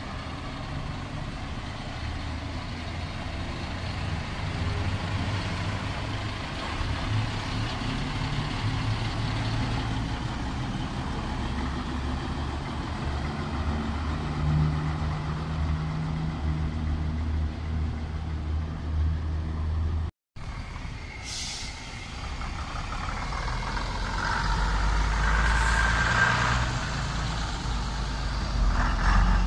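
Vintage bus engines running as the buses move off slowly, a low rumble that swells in the second half. Two short hisses of air come in the later part.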